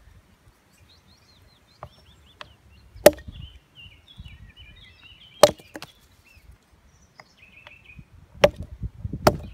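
Small camp axe chopping into seasoned wood on a log, splitting it into kindling: a few light taps, then four sharp chops, the last two close together near the end.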